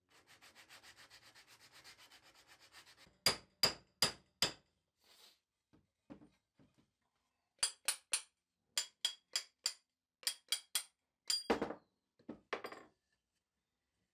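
Soft, fast rubbing of wood against sandpaper for about three seconds. Then a run of sharp knocks with a high metallic ring: four quick ones, a pause, then about ten more and a rougher scrape near the end, as the hatchet's handle is knocked down to seat the steel head.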